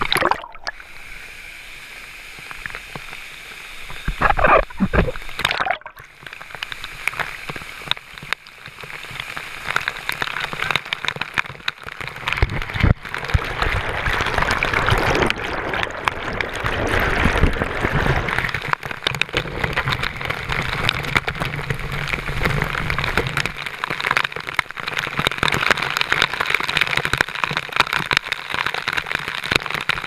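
Waterfall pouring and splashing into a pool close by, water beating and gurgling around a camera held in the spray, with a few knocks in the first six seconds. The rush grows louder after about ten seconds.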